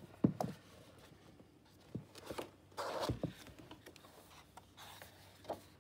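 Sheets of patterned scrapbook paper being handled and turned over, with a few light taps and a papery swish about two and a half seconds in.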